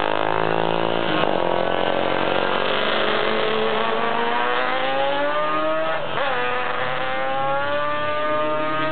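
Racing motorcycles accelerating past, the engine note climbing steadily, dropping sharply at a gear change about six seconds in, then climbing again.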